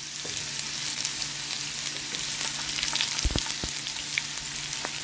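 Wooden spoon stirring a steaming, simmering pot over a steady sizzling hiss, with a few knocks of the spoon against the pot in the second half.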